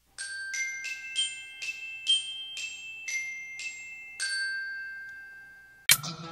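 Intro jingle of bell-like mallet-percussion notes, like a glockenspiel: about ten struck notes at uneven intervals, each ringing on, the last fading out slowly. Just before the end a sudden loud hit brings in fuller background music.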